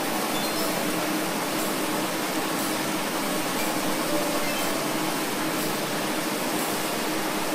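Steady rush of flowing water: an even, unbroken hiss.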